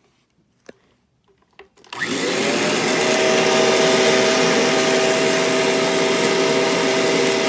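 A few faint clicks, then about two seconds in a vacuum cleaner is switched on: its motor spins up quickly and settles into a loud, steady whine with a rushing of air.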